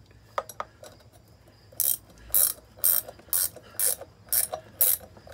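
Hand ratchet wrench clicking in short strokes, about two a second, as a bolt is turned into a wheel hub. The first second and a half is nearly quiet, with a couple of faint clicks.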